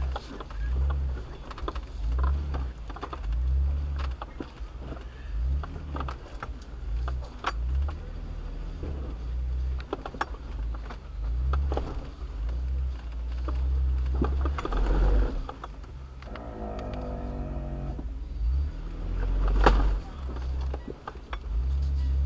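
Off-road 4x4's engine running at low revs, surging up and down as it crawls over rocks, with repeated knocks and clicks from the rig working over the terrain. A brief wavering whine comes about two-thirds of the way through, and a loud knock follows near the end.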